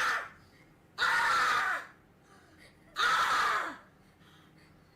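A person screaming twice: two short, hoarse shrieks, each under a second, with a second and a half of quiet between them.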